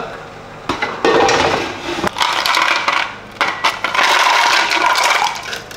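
Eggs clinking and rattling against an air fryer basket, with scraping as the basket is handled. One sharp click comes just under a second in, and a longer run of clattering comes in the second half.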